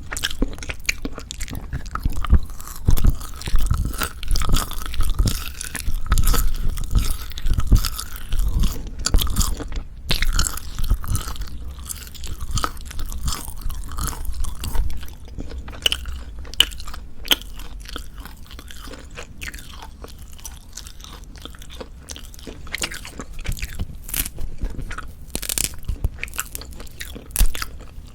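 Close-miked chewing of Jeju black pork jerky: irregular crunching and wet, sticky chewing, heavier in the first half and softer later.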